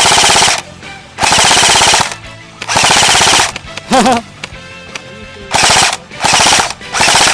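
An airsoft rifle firing short full-auto bursts, about six in all, each under a second long. Every burst is a rapid stream of shots over a high whine.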